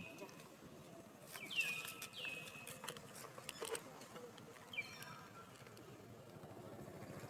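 High-pitched squeaking calls from a baby monkey: two short calls that fall in pitch about a second and a half and two seconds in, then a few fainter calls around five seconds, with soft clicks in between.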